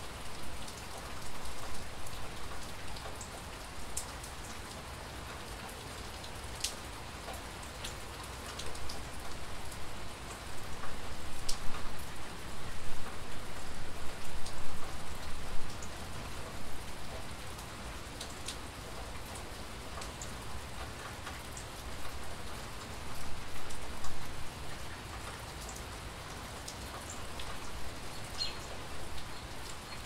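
Steady rain falling, with single drops ticking sharply close by. It grows louder for a few seconds around the middle and again briefly toward the end.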